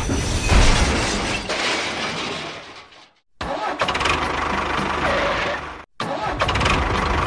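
A small engine or motor running with an even pulsing beat, in short clips joined by abrupt cuts about three and six seconds in.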